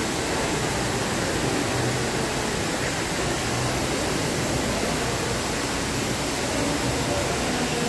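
Indoor mall fountain's water jets spraying and falling back into the pool: a steady rushing, splashing hiss.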